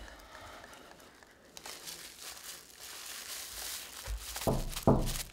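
A plastic bag crinkling as it is crumpled and handled, followed near the end by a few dull thumps.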